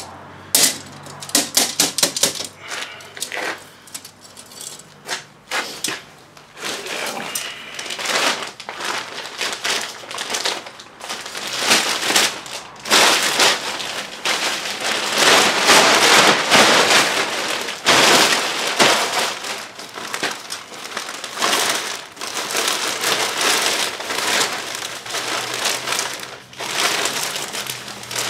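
Plastic trash bag rustling and crinkling as it is handled and fitted into a bag holder, with a quick run of sharp clicks about a second in.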